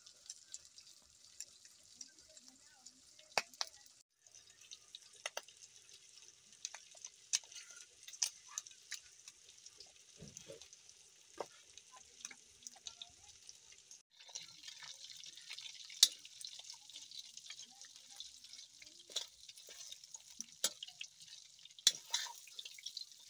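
Pork frying in oil in an iron wok: a steady high-pitched sizzle with scattered clicks and taps. The sizzle cuts out briefly twice. Near the end a ladle stirs the meat, scraping and knocking against the wok.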